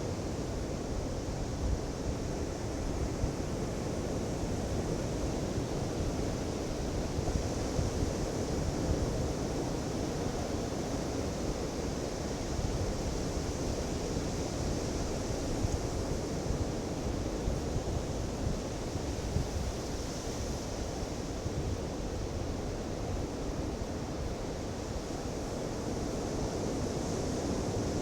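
Ocean surf on a Pacific beach: waves breaking and washing ashore in a continuous rush, swelling and easing gently, with some wind rumble.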